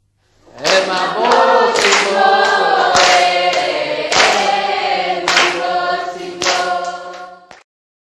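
A group of voices singing together, starting about half a second in and cutting off abruptly near the end.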